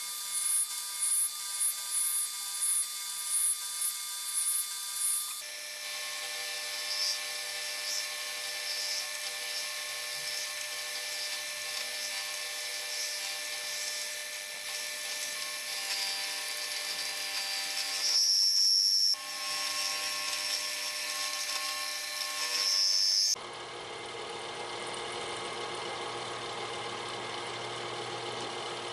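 Manual milling machine running, its end mill cutting a metal part with a steady machining noise made of several fixed tones, pulsing about twice a second at first. The sound changes abruptly a couple of times, and two brief, louder high squeals come about two-thirds of the way through.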